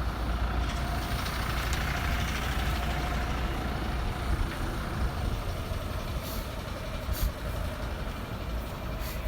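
Steady low engine rumble, with an even hiss over it.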